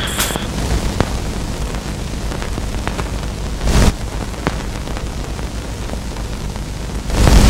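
Steady hiss and crackle with scattered sharp clicks, like an old film soundtrack. There is a brief louder rush of noise about four seconds in and another near the end.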